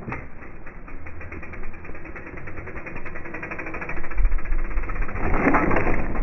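Mountain bike tyres running over dirt, with wind on the microphone. The bike lands a jump about four seconds in, then the rear tyre skids and sprays soil through a corner near the end, the loudest part.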